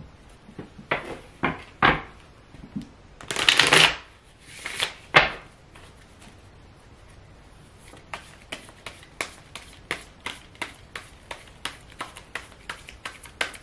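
Tarot cards being shuffled by hand. A few slaps and a longer rustle of cards in the first five seconds, a short pause, then a steady run of light card taps about three a second from about eight seconds in.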